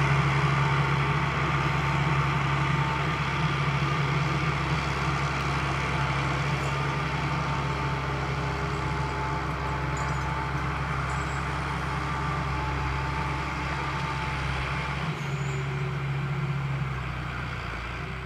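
Valtra 8050 forestry tractor's SISU 620DS six-cylinder 6.6-litre diesel running steadily, with a faint steady whine above the engine note, slowly getting quieter.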